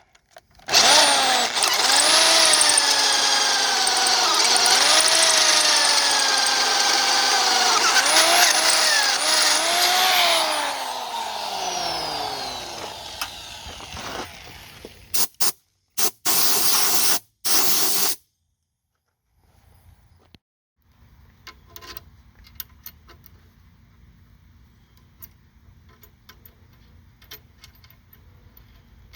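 Electric drill running under load while drilling bolt holes, its motor pitch dipping and rising as the bit bites. About ten seconds in it winds down with a falling pitch, then runs in three short bursts, followed by a faint hum and light clicks.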